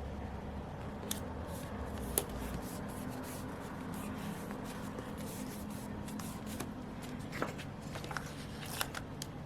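Stationery being handled at a desk: scattered light taps, clicks and paper rustles, a few sharper ticks near the end, over a faint steady hum.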